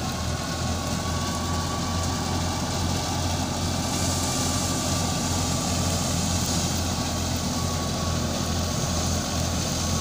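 Tractor-powered wheat thresher running steadily while threshing wheat: a low engine hum under an even whirring noise, with a thin steady whine.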